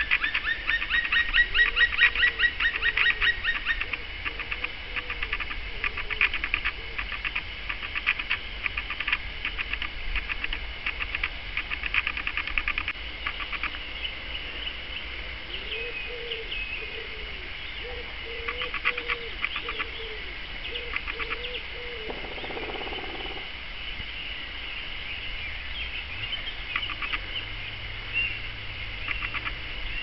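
Birds calling: trains of quick, high pulsed notes, densest in the first few seconds and returning in shorter runs, while a lower arched call repeats in two spells.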